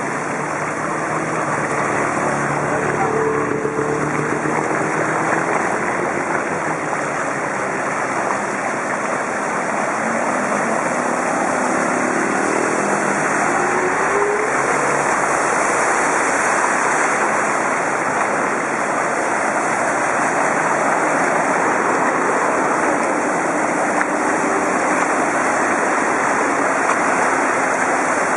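Harsh wind noise on a bike-mounted camera's microphone, a steady rushing hiss, mixed with water swishing as the bicycle rides through floodwater. Faint pitched sounds, rising and falling, show through a couple of seconds in and again around the middle.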